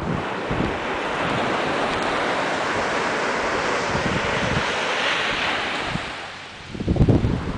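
Ocean surf breaking on a beach: a steady wash that swells and then fades about six seconds in. Near the end, low buffeting of wind on the microphone is the loudest sound.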